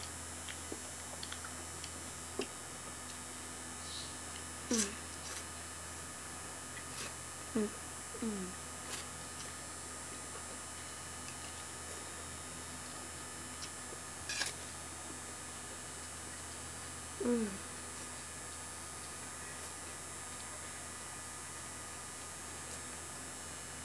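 Electric fan running with a steady hum. A few brief clicks and about four short sounds falling in pitch break through it now and then.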